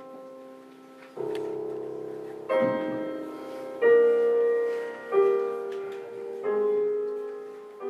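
Background music of slow held chords, a new chord struck about every second and a half, each one fading away.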